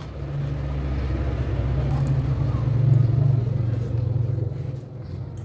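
Low engine rumble of a passing motor vehicle, swelling to its loudest about three seconds in and then fading.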